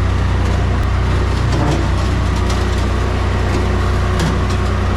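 Skid steer engine running steadily, a deep even drone, with a few light clicks or knocks over it.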